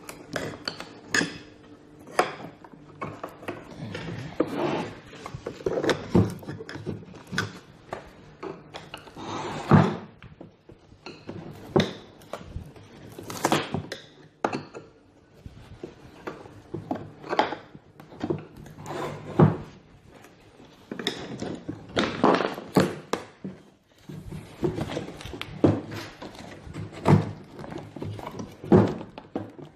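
Wooden packing crate being pried and pulled apart by hand: irregular knocks, thunks and scrapes of wooden slats being worked loose around a cardboard box.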